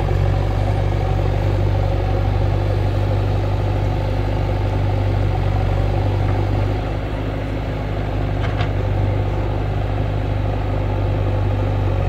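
JCB backhoe loader's diesel engine running steadily while the rear backhoe arm works, with a slight drop in level about seven seconds in.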